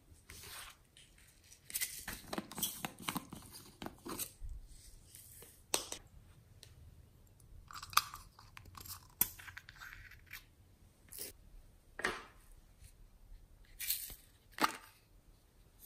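Small hard-plastic topping containers being handled and their lids pried and snapped open, with scattered sharp clicks and brief scraping and crackling of plastic.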